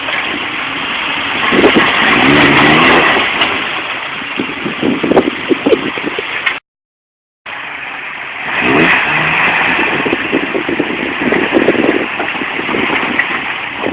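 Toyota off-road vehicle's engine revving under load, its pitch climbing twice. The sound drops out completely for under a second midway.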